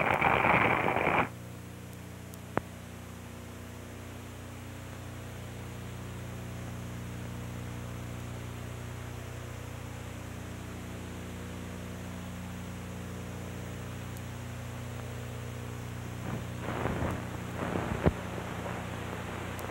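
Steady hiss and low electrical hum of an old film soundtrack with no dialogue. A loud hissy noise cuts off suddenly about a second in, with a single sharp click shortly after and faint scratchy sounds with another click near the end.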